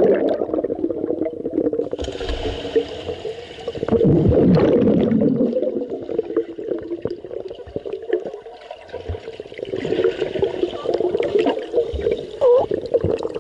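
Muffled churning and gurgling of swimming-pool water heard from under the surface, with surges of turbulence as swimmers kick and stroke close by. High sounds are damped.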